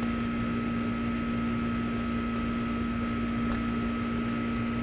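Steady electrical hum and hiss at an even level, with a couple of faint small ticks in the second half.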